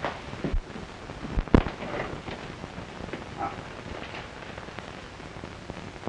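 Hiss and crackle of an old optical film soundtrack, with a few scattered knocks and clicks, the loudest about one and a half seconds in.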